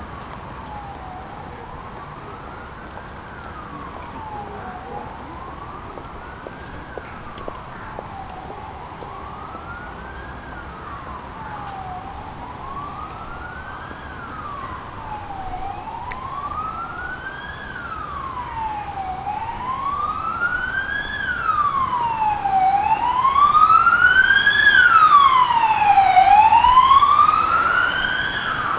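Emergency vehicle siren on a slow wail, its pitch rising and falling about every three and a half seconds. It grows steadily louder as the vehicle approaches, is loudest about three-quarters of the way through, then eases slightly.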